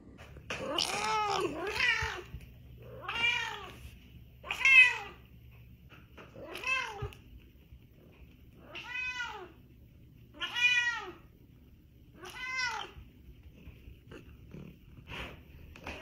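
Domestic cat meowing over and over: about eight separate meows, one every second or two, each rising and then falling in pitch.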